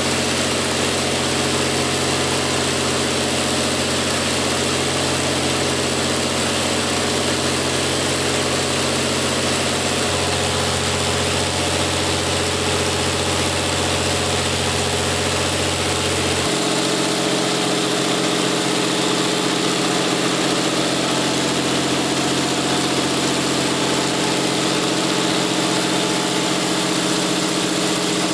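Twin-turbocharged Cummins KTA38 V12 engine, converted from diesel to spark-ignited natural gas, running steadily as a generator set. Its deep tones shift twice, about ten and sixteen seconds in.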